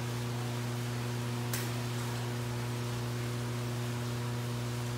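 Steady electrical hum, a low buzz with higher overtones, over a faint hiss, with one faint click about a second and a half in.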